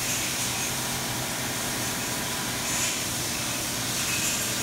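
2006 Fadal VMC 4525HT vertical machining center milling a workpiece held in a vise: the spindle runs and the cutter takes metal with a steady, noisy cutting sound and brief brighter, higher-pitched flares.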